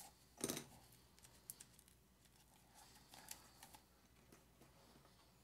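Faint handling noises of small hand tools and a diffuser base on a work mat: scattered light clicks and taps, with one louder knock about half a second in and a short run of ticks around three seconds in.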